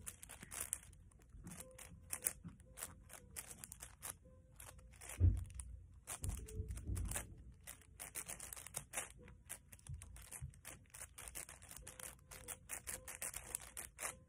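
Plastic 7x7 Rubik's cube being turned by hand: rapid, irregular clicking and scraping of its layers as it is solved, with a low bump of handling about five seconds in.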